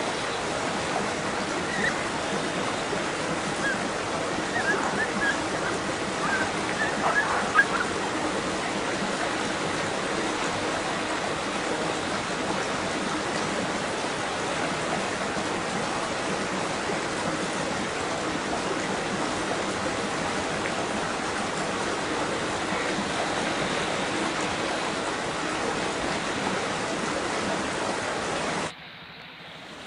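Steady rush of flowing water, with a few short high chirps a few seconds in; the sound drops away abruptly about a second before the end.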